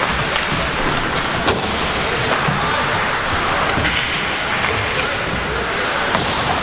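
Ice hockey play: a steady hiss of skates on the ice with a few sharp clacks of stick and puck, and voices in the background.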